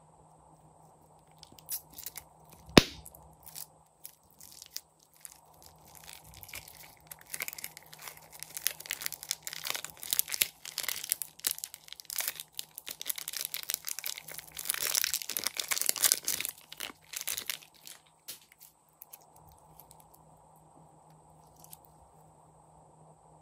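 Pink slime being squeezed from a plastic piping bag and then kneaded and pulled between fingers: a run of crackly clicks and pops, busiest in the middle, with one sharp click about three seconds in. The crackling dies away well before the end, as the slime is stretched out quietly.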